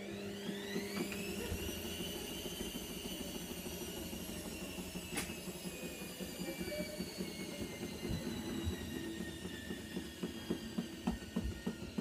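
Indesit front-loading washing machine on its spin. The motor and drum whine rises in pitch over the first second and a half, then slowly falls. Low knocks and thumps grow more frequent toward the end, with one sharp click about five seconds in.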